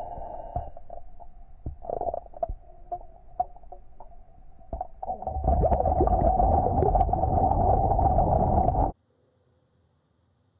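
Muffled underwater sound of water stirring around a GoPro in a water-filled tank: a dull rumble with scattered clicks and bubbling. About five seconds in it swells into loud, dense churning, then cuts off abruptly near the end.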